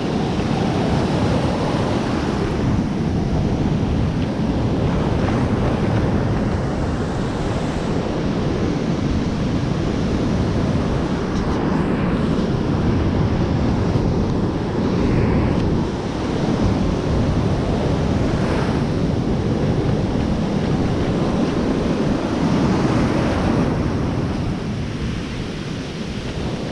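Ocean surf washing in and out around the legs in the shallows, with wind buffeting the microphone; the sound stays steady throughout.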